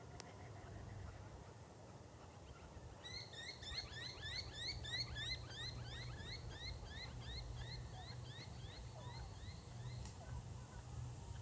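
A bird calling a rapid run of short, rising chirps, about three a second, starting about three seconds in and stopping near the end. A faint low rumble runs underneath.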